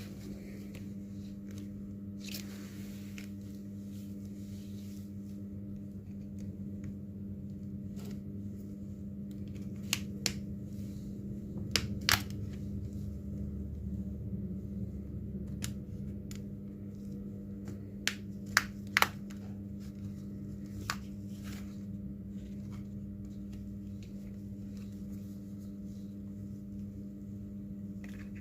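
A steady low electrical hum, with scattered sharp clicks and taps of small hand tools, the loudest ones around the middle and about two-thirds through.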